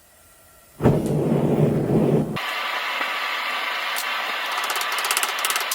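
Propane forge burner running: a steady rushing noise that starts about a second in and turns thinner and hissier about two and a half seconds in, with fast ticking near the end.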